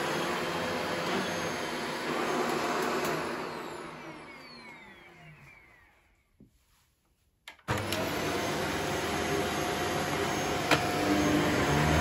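Shark DuoClean upright vacuum cleaner running, then switched off about three seconds in. Its motor winds down with a falling whine into near silence, broken by a couple of faint clicks. About two thirds of the way through it starts up again abruptly and runs steadily, with one sharp click near the end.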